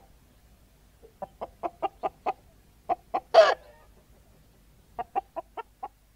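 Domestic hens cackling. There are runs of short clucks at about five a second, and one long, loud squawk a little past the middle.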